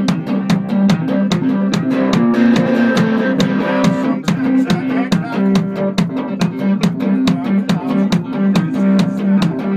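Guitar played live: a repeating low riff with a sharp percussive click about four times a second.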